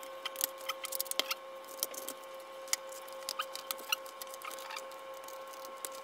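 Plastic clips of an MSI GF63 Thin laptop's bottom cover clicking loose as a plastic card is worked along the seam to pry it off: a run of sharp clicks and ticks, thick in the first two seconds, then scattered. A faint steady whine sits underneath.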